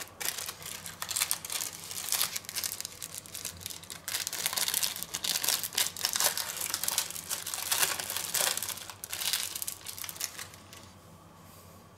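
Thin plastic wrapping crinkling and crackling in irregular handling, as a slice of processed cheese is unwrapped from its film. The crinkling stops a little before the end.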